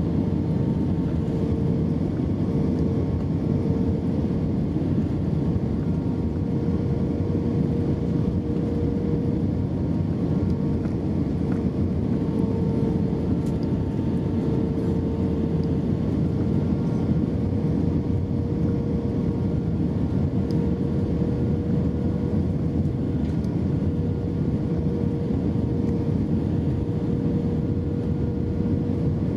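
Steady cabin noise inside an Airbus A320-232 near the wing: its IAE V2500 engines running at an even pitch over a deep rush of air, with a constant hum-tone on top.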